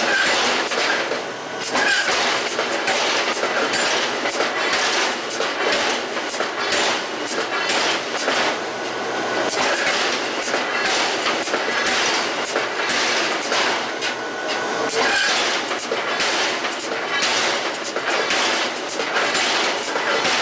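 Factory machinery making a dense, continuous metallic clatter of rapid knocks and rattles.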